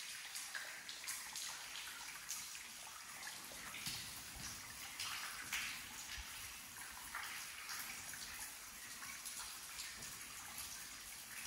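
Running water: a steady, even rush with irregular louder moments.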